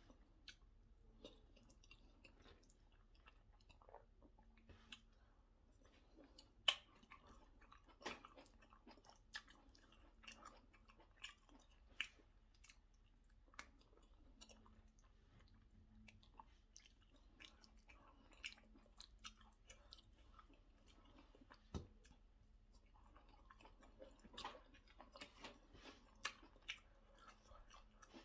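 Close-up mouth sounds of a person eating white starch swallow with egusi soup: quiet chewing with moist clicks and lip smacks at roughly one a second, some sharper than others.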